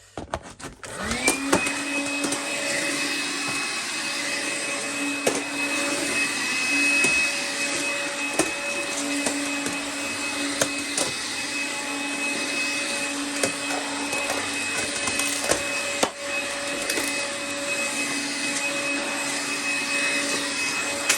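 Small vacuum cleaner with a nozzle attachment on, switching on about a second in with a rising whine, then running steadily with a high whine and a lower hum, with scattered light clicks of debris and the nozzle knocking.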